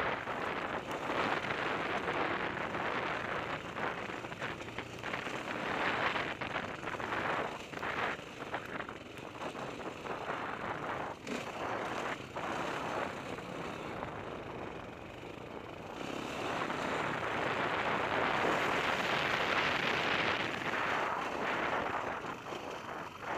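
Dirt bike engine running while riding over rock, rising and falling in loudness and louder in the last third, with wind noise on the microphone.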